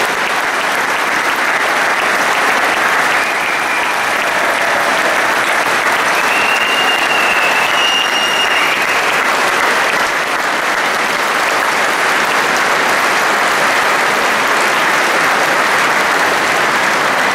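A large audience applauding in a sustained, even round of clapping that carries on without a break.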